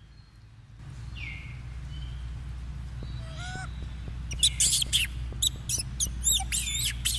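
A rapid string of short, high-pitched, chirping animal calls, beginning about four seconds in after a few fainter gliding calls, over a steady low hum.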